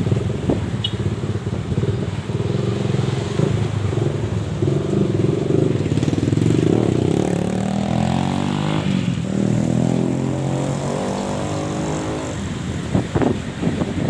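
Trail motorcycle engine running and revving, its pitch climbing about halfway through and then dropping back.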